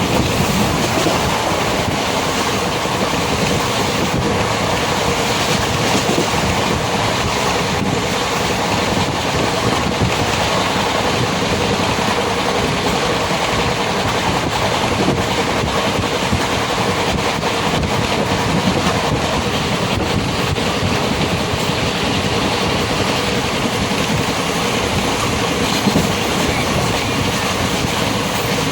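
Steady rumbling noise of a moving vehicle, running evenly throughout with no breaks.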